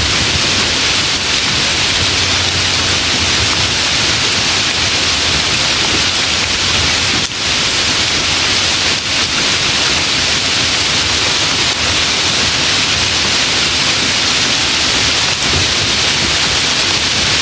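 Light rain falling: a steady, even hiss of raindrops without breaks.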